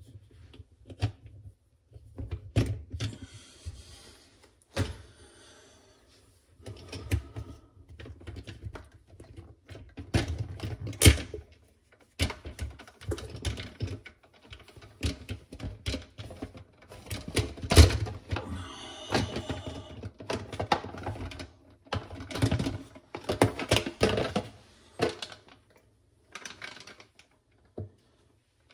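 Irregular clicks, knocks and scraping of dishwasher interior parts being unclipped and worked loose by hand, with a few sharper knocks.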